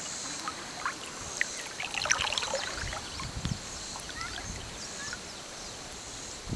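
Light lake water lapping and trickling against an inflatable float, with small splashes clustered about two seconds in.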